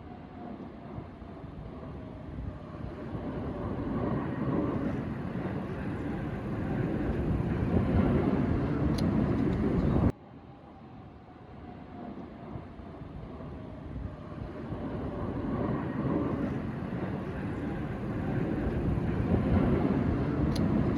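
Blue Angels F/A-18 jets passing overhead: jet noise swells over several seconds with a slowly falling tone, breaks off abruptly about ten seconds in, then swells again.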